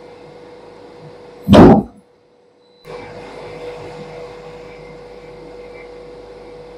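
Plastic injection moulding machine running with a steady hum and one held tone. About a second and a half in, a loud half-second burst comes from the machine as it cycles. The sound then drops out for about a second before the hum returns.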